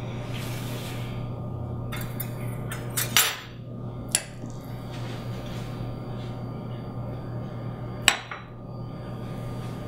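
A table knife clinking and scraping against small ceramic dishes as almond cheese is scooped out and spread onto celery sticks. There are several sharp clinks, the loudest about eight seconds in, over a steady low hum.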